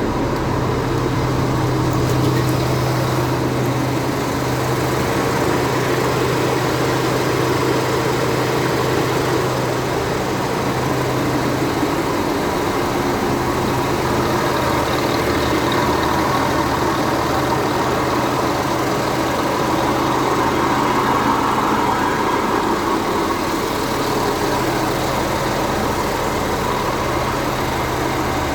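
Freshly overhauled MAN diesel engine of a K-700 tractor idling steadily.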